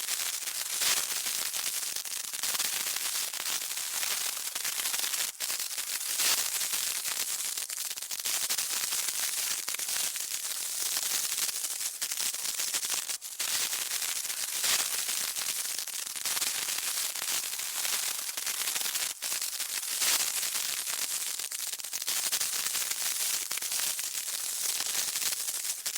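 A burning fuse sizzling: a steady high crackling hiss with small pops, briefly dipping a few times.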